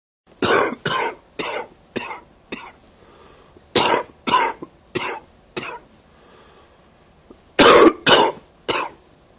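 A person with a cold coughing in three fits: five coughs growing weaker, then four, then three, with the first cough of the last fit the loudest. Faint breaths are drawn between the fits.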